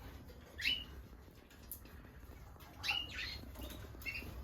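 Canaries giving short contact calls: two clear calls a couple of seconds apart, each a quick downward sweep ending on a brief held note, with a fainter chirp near the end.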